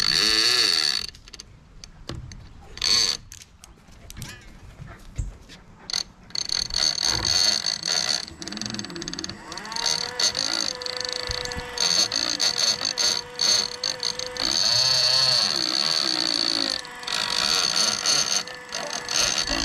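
Hooker Electric 80W motor on an International 80 big-game fishing reel winding in line under load from a dog tugging on the other end. It runs in short bursts at first, then steadily from about six seconds in, its whine wavering in pitch as the pull on the line changes.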